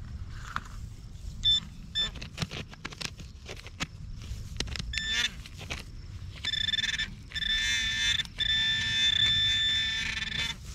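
Handheld metal-detecting pinpointer probed through a dug soil plug: a high electronic tone sounds in short beeps about a second and a half and two seconds in, then as a steady buzzing alert for the last few seconds, broken once briefly, as the tip closes on the buried metal target. Soil crackles and crumbles under the fingers throughout.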